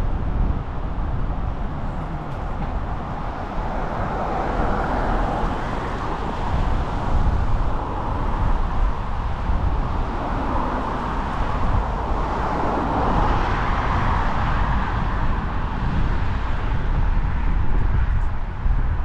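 Wind buffeting the microphone of a helmet-mounted action camera on a moving bicycle, a steady low rumble, mixed with the rushing of tyres on the tarmac path; the rushing swells and fades several times.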